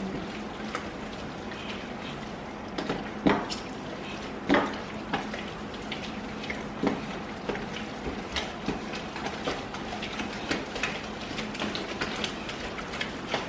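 Hands squishing and stirring a wet glue-and-borax slime mixture in a bowl, giving irregular wet squelches and clicks over a faint steady hum. The batch is still runny and has failed to set properly.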